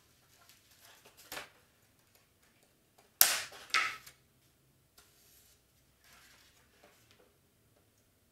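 Foam board pieces being handled and set down on a self-healing cutting mat: a sharp slap about three seconds in, a second one half a second later, and a lighter knock before them, with faint rustling between.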